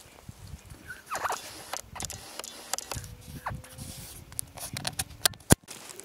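Rustling and scattered clicks of someone moving through low tundra vegetation. A short falling squeak comes about a second in, and a sharp click comes just before the end.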